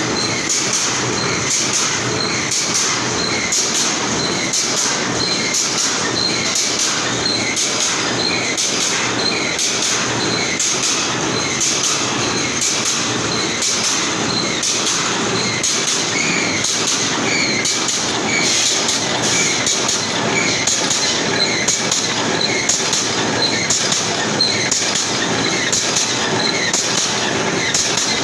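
Brick force wire mesh welding machine running: a steady mechanical clatter with sharp clicks repeating at an even pace as it welds the wire mesh.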